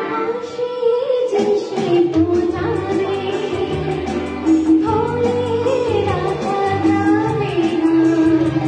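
A woman singing a song over instrumental accompaniment.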